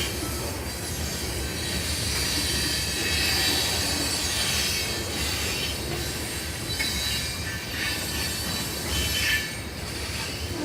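Freight cars of a CN train rolling past with a steady low rumble and high-pitched wheel squeal that swells about two to five seconds in.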